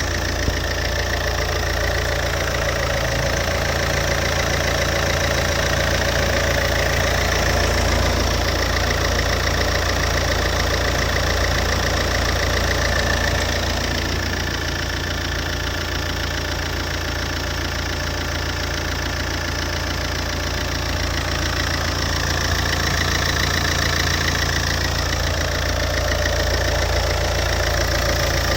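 Alfa Romeo 147 JTD 140's 1.9-litre four-cylinder common-rail turbodiesel idling steadily from a cold start.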